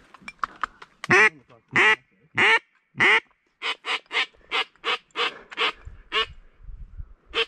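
A series of duck quacks: four loud, drawn-out quacks, then about nine quicker, shorter ones, with one more near the end.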